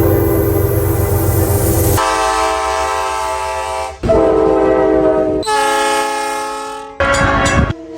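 Train horns sounding in a string of about five separate blasts, each cut abruptly into the next, each a steady chord of several tones. A low rumble runs under the first blast.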